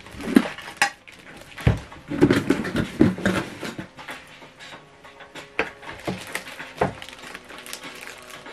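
A soundbar being handled in its plastic wrapping: the plastic crinkles and rustles, with scattered knocks and clicks. It is busiest in the first three or four seconds and sparser after that.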